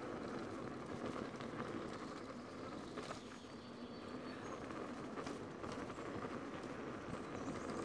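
Inmotion V11 electric unicycle rolling along a dirt forest trail: steady tyre and wind noise with scattered small knocks and crunches from the ground.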